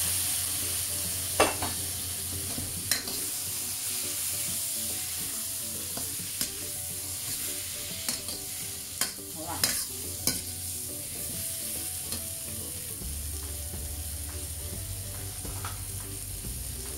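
Eggplant and vegetarian mince stir-frying in a wok: a steady sizzle, with the metal spatula scraping and clinking against the wok several times as the pieces are turned.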